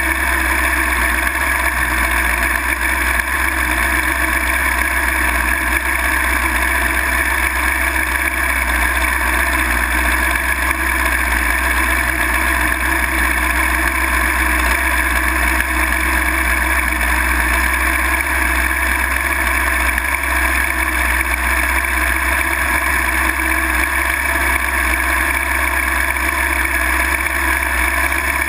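Drag-racing motorcycle's engine idling steadily.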